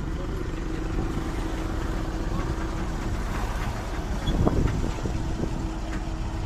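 A motor running steadily, with a brief louder rise about four seconds in.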